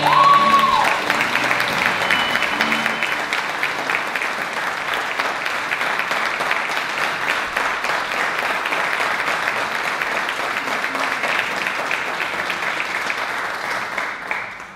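Audience applauding, a dense steady clapping that stops suddenly about fourteen seconds in.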